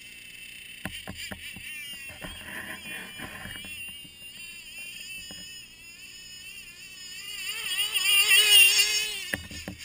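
Radio-controlled Arctic Cat snowmobile model running over snow, its motor giving a high, wavering whine. The whine swells to its loudest about eight seconds in as the sled passes close, then drops away.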